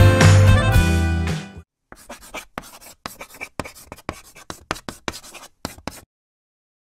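Background music that cuts off about a second and a half in, followed after a short gap by a run of light, quick, irregular clicks lasting about four seconds.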